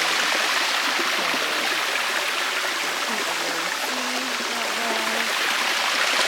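Steady rushing of water from a hot-spring stream or cascade flowing into the thermal pools.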